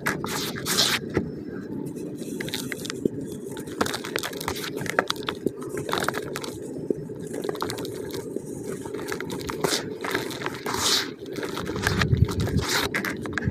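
Hands crumbling, squeezing and scooping slightly damp pure cement powder and moulded cement lumps in a plastic bucket: gritty scraping with many small crunches and crackles as the clumps break apart. A louder, deeper crunch comes about twelve seconds in.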